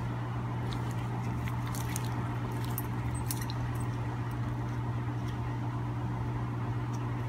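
Steady low hum, with faint scattered clicks and small wet sounds from a knife cutting the membrane at a wolf toe's claw joint while skinning out the foot.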